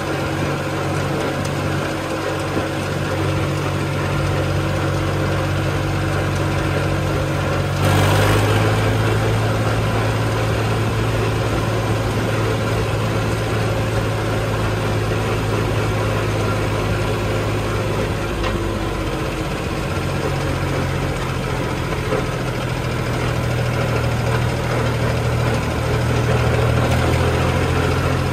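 Mahindra tractor's diesel engine running as the tractor drives along, a steady engine note. The note shifts about eight seconds in, with a brief louder moment, and shifts again around twenty seconds.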